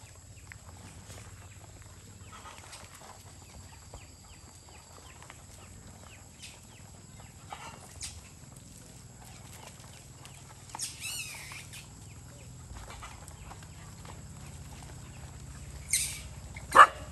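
Dogs and puppies squabbling over food: a low, quiet background broken by a few short high whines and yelps, with a wavering whine about eleven seconds in and a sharp yelp, the loudest sound, near the end.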